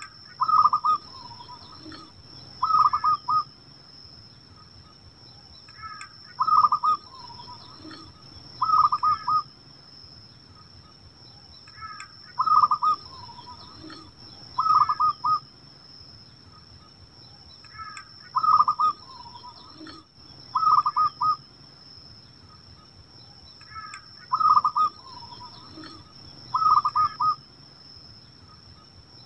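Zebra dove (perkutut) cooing its song: short, rapidly trilled coos in pairs of phrases about two seconds apart, the pair repeated about every six seconds. A steady faint high-pitched whine runs underneath.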